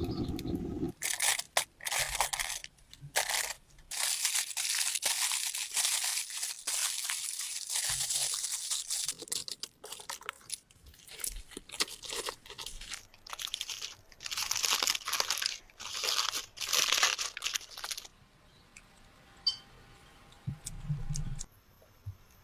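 Repeated crunching and crackling of dry material in bursts, stopping about eighteen seconds in.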